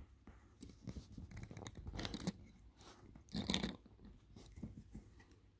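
A pointed metal tool nudging small plastic parts into place inside an open watch case: faint scratchy clicks and crackles, with louder crunchy bursts about two and three and a half seconds in.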